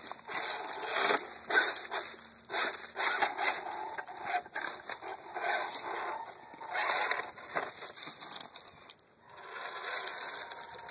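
Venom RC rock crawler grinding and scraping its tyres and chassis over rock and crunching through dry leaves, in irregular bursts as it climbs.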